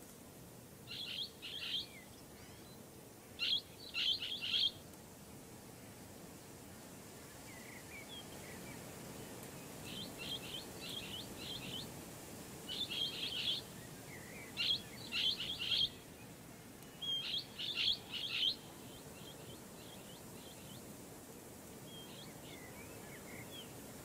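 Blue-headed parrot (Pionus menstruus) calling: bursts of short, rapid, high-pitched notes, several notes to a burst, repeated every couple of seconds with a longer pause after the first two bursts.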